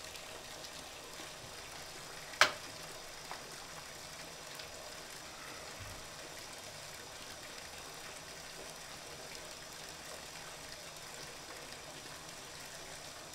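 Faint steady hiss of room tone, with one sharp click about two and a half seconds in and a much fainter tick about a second later.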